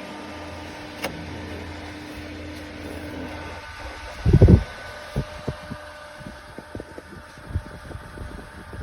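Ventilation fan running with a steady hum and a few held tones, which drop out about three and a half seconds in; then a heavy thump and a string of light clicks and knocks.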